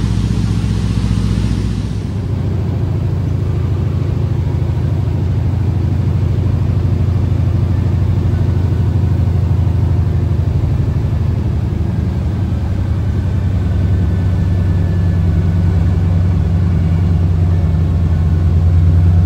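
Floatplane's piston engine and propeller droning steadily, heard from inside the cabin, a little louder near the end.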